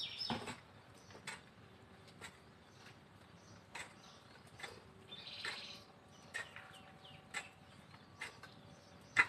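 A hoe chopping into garden soil, a dull knock with each stroke, about one a second.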